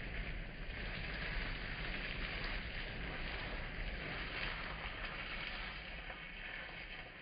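Grated-potato tortilla frying in hot oil in a pan: a steady sizzle that eases off a little near the end.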